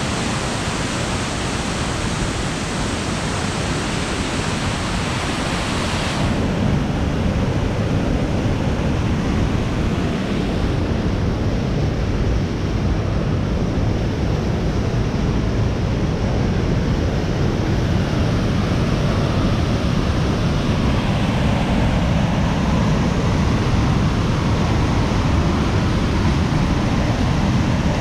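Rushing white water of creek rapids and a waterfall: a steady, loud noise of falling water. The high hiss turns duller about six seconds in.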